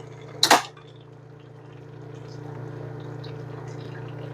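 A single sharp clink of kitchenware, such as a utensil or lid against a pot, about half a second in, then a steady low hum.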